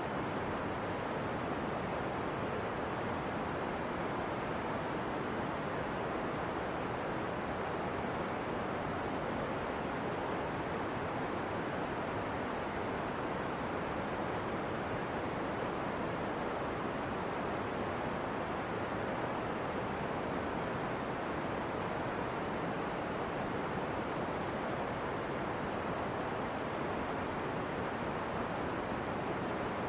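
Steady, unbroken rushing hiss of steam venting from the Pisciarelli fumarole.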